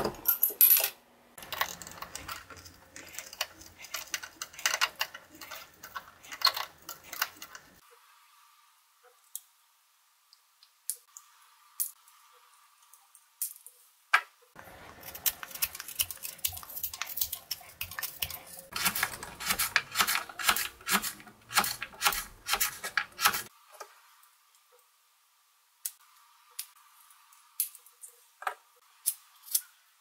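Victorinox Swiss Army knife blades and tools being opened and closed by hand: rapid metallic clicks, snaps and rattles of the spring-loaded tools. The clicking comes in two long bursts, in the first eight seconds and from about fifteen to twenty-three seconds, with a few single clicks near the end.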